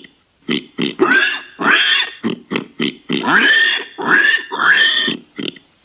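Warthog grunting and squealing: a quick string of short grunts mixed with several longer squeals that rise in pitch.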